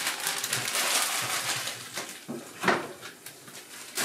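Ground meat frying in a pan, sizzling with a hiss that is strongest in the first half, with a few short clicks about two-thirds of the way in and at the end.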